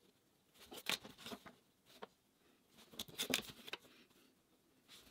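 Mechanical drafting pencil lead scratching across drafting paper in short strokes, in quiet bursts about two seconds apart.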